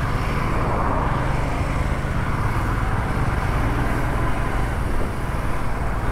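Motorcycle riding along a busy highway: steady engine and wind noise mixed with the rush of passing traffic.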